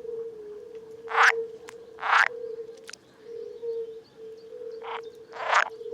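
Frogs calling at a pond: a steady, slightly wavering low call runs underneath, with four short, harsh calls in two pairs over it.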